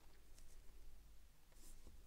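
Faint, light scraping and ticking of small metal watchmaking tools on a watch's parts: two soft scrapes about half a second in, a stronger one past the middle, and a small tick near the end.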